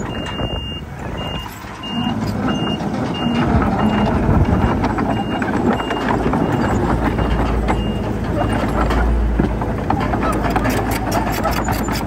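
Reversing alarm on a heavy construction vehicle beeping in a steady high tone, about three beeps every two seconds, growing fainter and stopping about three quarters of the way through. Underneath is the low rumble of diesel engines working.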